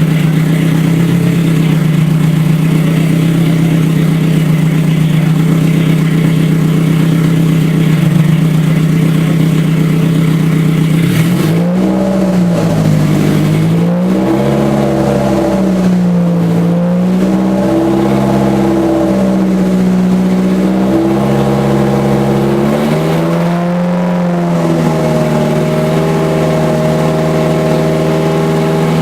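Rebuilt Toyota 3S-GE inline-four engine running, steady at first; from about 11 seconds in, its speed rises and falls several times. The engine is on a tune that is still being sorted out.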